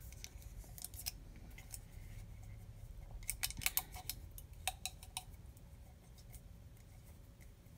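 Faint crackling and light clicking of heat tape and sublimation paper being folded over a ceramic mug's rim and pressed down by fingers. A cluster of sharper clicks comes about three and a half seconds in, and a few more around five seconds.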